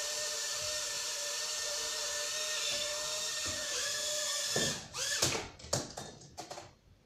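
Small four-propeller toy drone's motors buzzing in a steady, high whine while it hovers. About four and a half seconds in the whine cuts off suddenly and several quick clattering knocks follow.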